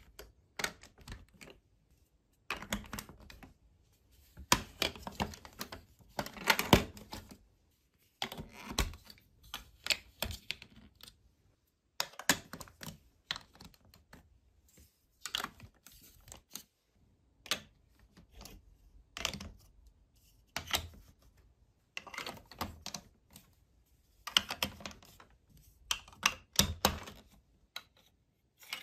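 Large plastic building blocks and marble-run track pieces clicking and snapping as they are handled and pressed onto the studs, in short clusters of clicks every second or two.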